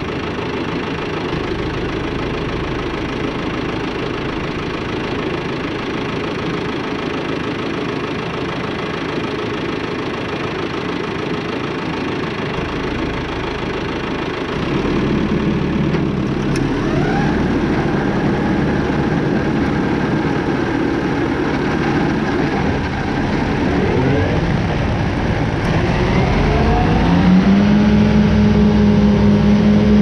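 Claas Arion 530 tractor engine running steadily while mowing grass with disc mowers, heard from the front-mounted mower. About halfway through it gets louder, its note rises several times, and near the end it settles into a steady, higher hum.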